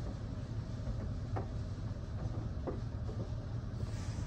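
Touch-free automatic car wash (HydroSpray Rainmaker) heard from inside the car's cabin: a steady low rumble with a few faint ticks. Near the end a spray hiss starts to build.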